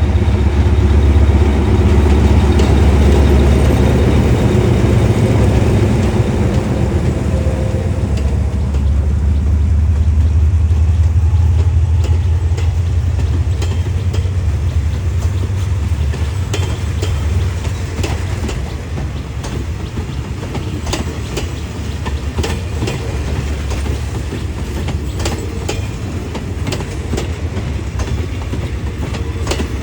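A diesel train running past on the rails: a heavy low engine rumble dominates for about the first twelve seconds, then fades as the carriage wheels take over with a run of sharp clicks over the rail joints.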